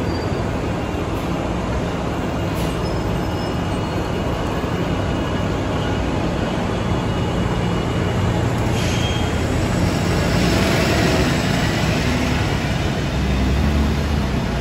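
Hybrid city bus in motion: a steady drone of drivetrain and road noise that swells about two-thirds of the way through and again near the end.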